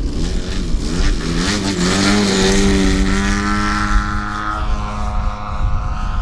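Engine and propeller of an AJ Laser 230 radio-control aerobatic airplane opening up, the pitch rising over about two seconds and then holding steady at high power.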